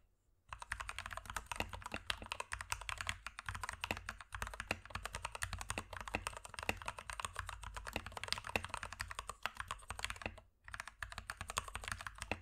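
Rapid typing on an Akko 3068v2 mechanical keyboard with factory-lubed Gateron Pink linear switches and lubed stabilizers on a metal plate, pausing briefly at the start and again about ten and a half seconds in. The sound is soft and full, with no rattle, ping or echo.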